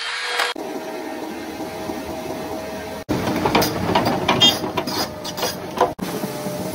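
Excavator running with a steady machine tone, heard in a few short spliced clips, with a run of sharp clanks and knocks through the middle stretch.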